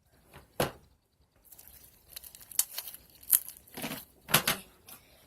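Blue fluffy slime being stretched and squished by hand, giving a series of short crackly, tearing sounds as it pulls apart, loudest about half a second in and around four seconds in.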